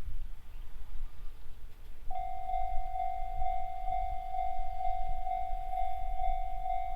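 Japanese level-crossing electronic warning bell with the Tohoku-type tone switching on about two seconds in and repeating its clanging tone about twice a second: the crossing has been triggered by an approaching train. A low rumble sits underneath throughout.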